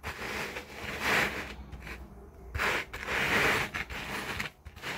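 Rustling and scraping in uneven spells as hands handle a necklace and sort through loose jewelry.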